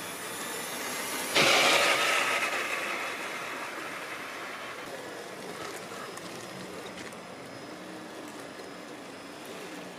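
Traxxas TRX-4 Bronco RC crawler's electric motor and gear drivetrain whining as it drives over dry leaves. The sound jumps suddenly louder about a second and a half in, fades over the next couple of seconds, then runs on quieter with a wavering pitch.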